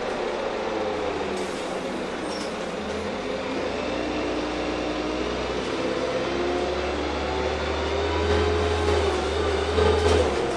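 Heard from inside the passenger cabin: a Heuliez GX317 LPG city bus running along the road, its engine and drivetrain giving a steady drone. The whine's pitch sinks over the first few seconds, then climbs again, while a deep rumble grows stronger in the second half.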